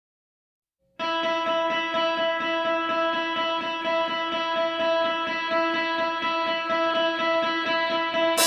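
Background music: a guitar picking a fast, even, repeating figure over held notes, starting about a second in after silence.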